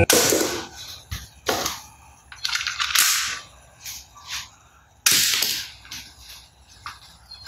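Toy gun shots: a string of sharp bangs with hissing tails, the loudest right at the start and about five seconds in, with smaller ones between.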